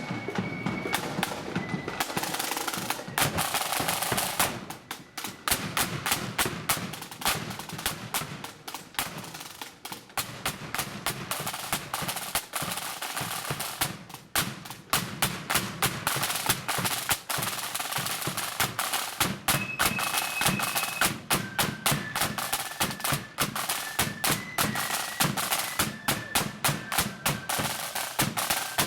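Marching flute band's drum corps playing rapid snare drum beats and rolls over a lower drum. A few short, steady high notes come in about twenty seconds in and again near the end.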